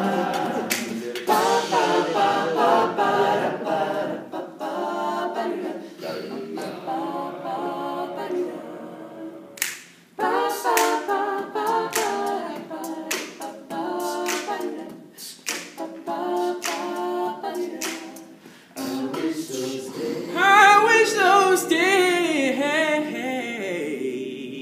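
Male a cappella group singing in close harmony over a steady beat of sharp clicks. Near the end a solo voice rises above the group with wavering runs, the loudest part, before the sound trails off.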